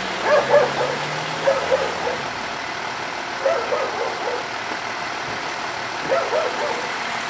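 A dog barking in short bursts of a few barks each, four times. Under the first bursts a vehicle engine idles with a low steady hum that fades out after about two and a half seconds, over a steady outdoor background hiss.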